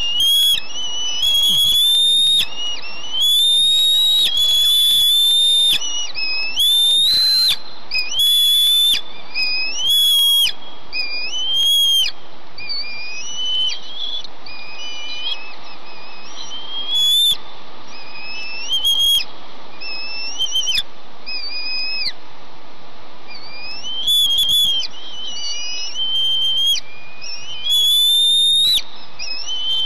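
Bald eaglets begging for food: a string of high, thin whistled calls, each slurring upward, repeated every second or so with a couple of short pauses, over a steady background hiss.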